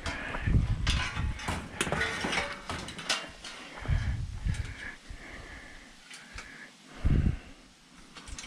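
Irregular knocks, thumps and metallic rattling as parts of a kitchen range are handled and carried, with a few short high-pitched squeaks in between.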